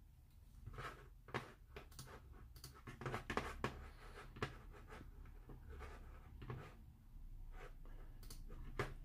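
Faint, irregular light clicks and taps from a gloved hand handling a disassembled iPhone 6 on a repair mat, bunched in the first four seconds and a few more near the end, over a low steady hum.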